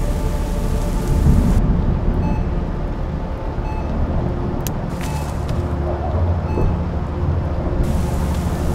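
Heavy rain with a low rumble of thunder about a second in. From just after that until near the end the rain turns muffled, as if heard from indoors, with a low steady hum beneath it.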